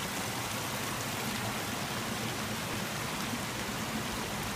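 Steady rush of water pouring into and flowing through a concrete trout raceway.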